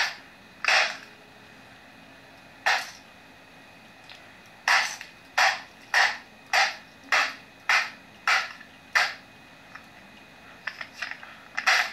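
A flashlight beating on a Dell laptop, heard played back through a laptop's small speakers. There are about ten hard blows, with a steady run of eight near the middle at about one and a half a second.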